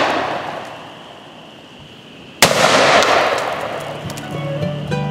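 A Remington V3 Tac-13 12-gauge semi-automatic shotgun fires one load of double-aught buckshot about two and a half seconds in, the blast echoing and slowly dying away. The echo of a shot just before fades over the first second, and plucked-string bluegrass music comes in near the end.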